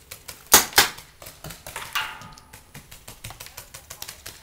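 Paintball markers firing in rapid succession: a fast, even string of pops, several a second, with two louder, closer shots about half a second in and another sharp crack about two seconds in.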